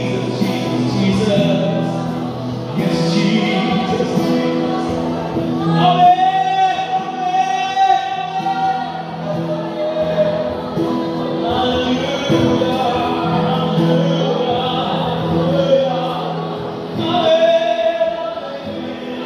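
A group singing a gospel worship song over long held instrumental chords.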